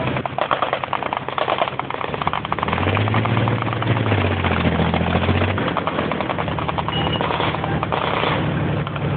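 Military vehicle engine running as the vehicle drives over rough ground, with a dense, rapid rattle throughout. The engine note swells and rises a little from about three seconds in, then eases off.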